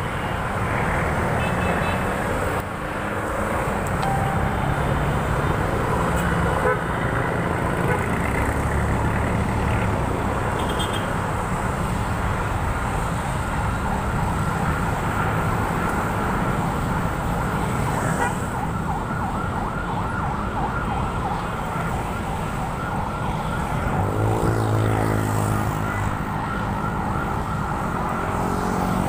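Steady traffic on a wide city road, cars and SUVs passing close by with engine and tyre noise. About 24 seconds in, one vehicle's engine passes close and stands out.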